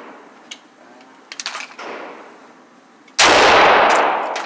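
An AR-15 rifle fires a single shot about three seconds in, loud and echoing off the walls of the indoor range as it dies away. A few faint clicks come before it.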